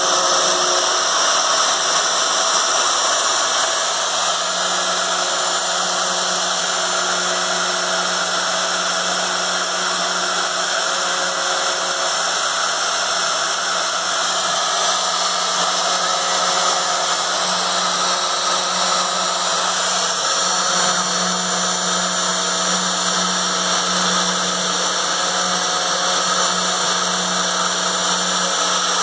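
Home-built metal CNC machine running, its spindle motor giving a steady, unbroken power-tool whine.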